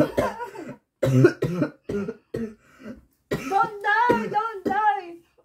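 Wordless voices in short bursts: a woman laughing and a boy groaning in protest, ending in a quick run of high-pitched syllables from about three seconds in.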